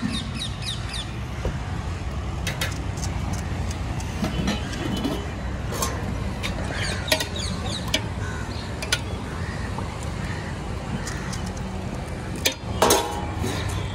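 Steady low rumble of road traffic, with scattered light clinks of steel utensils at a street-food cart and a louder clatter near the end.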